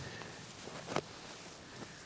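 Fabric rustling as a lightweight down quilt is shaken out and smoothed over a sleeping pad, with one sharp tap about halfway through.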